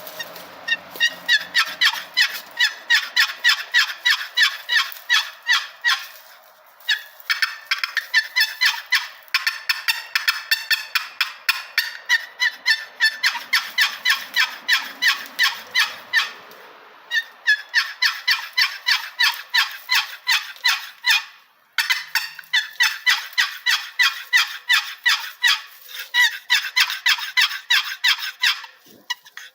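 Hand-made cedar turkey box call with a purpleheart lid, its lid scraped across the box's edge to make long runs of rasping turkey yelps, about four notes a second. The runs break off briefly about 7, 17 and 21 seconds in.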